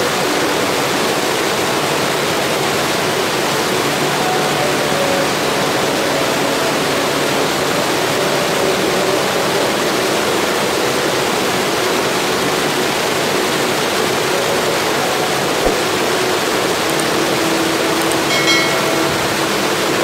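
Steady rush of white water from a small stream cascading over boulders.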